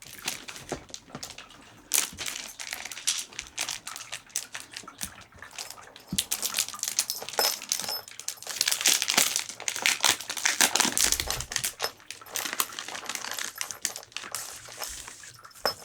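Plastic packaging of Halloween decorations crinkling and rustling as it is handled, with many small irregular clicks and taps, busiest about halfway through.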